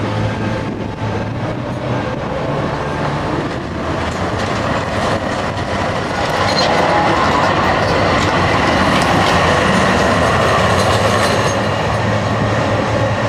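DÜWAG articulated tram running on street track, its wheels rumbling and clicking over the rails. It grows louder as it passes close by about halfway through, with a thin wheel squeal on the curved track.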